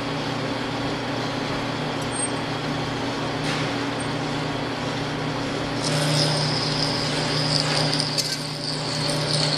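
Metal lathe running at low speed, about 95 RPM, while a 25/32-inch twist drill in the tailstock cuts into the spinning steel bar; a steady motor and gear hum, with a high cutting whine joining about six seconds in.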